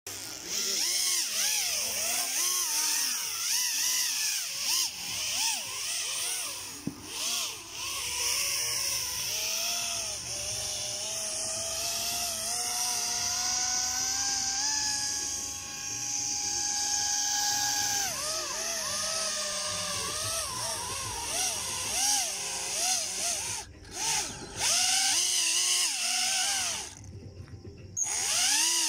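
Homemade radio-controlled hovercraft's electric ducted fans whining, the pitch rising and falling with the throttle. It holds one steady pitch for a few seconds midway and drops away briefly near the end.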